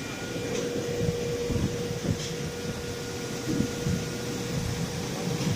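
CNC drilling machine running with a steady mechanical hum and a faint steady tone, during the cycle that calls up cutter 1 for an automatic tool change.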